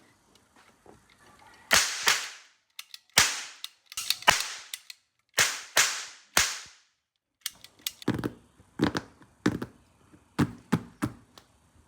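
Toy guns firing: a series of sharp cap-gun-like cracks, about six loud ones over the first seven seconds, each with a short ringing tail, followed by a run of quieter clicks and clacks.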